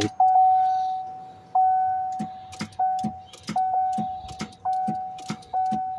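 2015 Chevrolet Tahoe's dashboard warning chime dinging about six times, each ding a single tone that starts sharply and fades. There are short clicks in between, with the key on but the engine not cranking.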